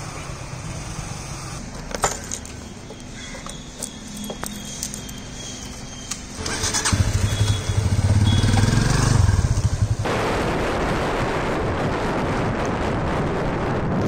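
Motorcycle engine running and revving for a few seconds, then from about ten seconds in a steady rush of wind and road noise from a motorcycle riding at speed.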